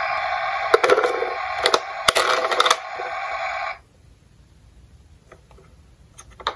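Electronic sound effect from a battery-powered toy ambulance's small speaker, cutting off suddenly about four seconds in. Sharp plastic clicks and knocks from the toy being handled sound over it, and a few faint clicks follow.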